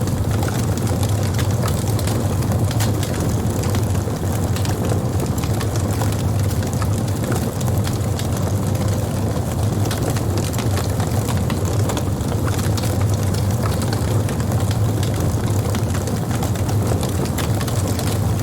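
Wood campfire burning: a steady low rumble of the flames with frequent small, sharp crackles and pops from the burning wood.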